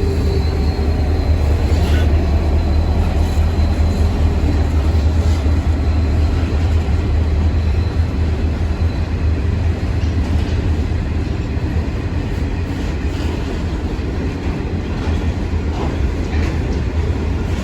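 A train passing close by: a steady, loud low rumble with a few sharp clicks from the wheels, and a faint high whine in the first second or so.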